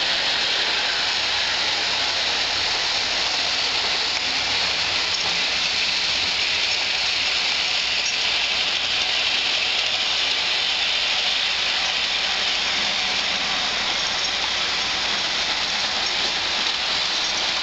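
Bachmann HO-scale model train running along its shelf track: a steady whirring hiss with a few faint ticks.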